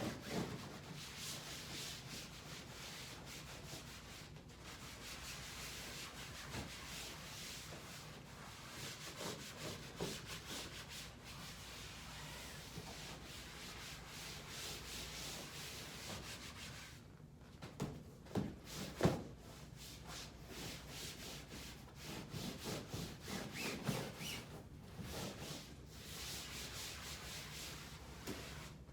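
Towel wiping and rubbing disinfectant off the padded top and sides of a massage table, a steady scrubbing with a few light knocks about two-thirds of the way through.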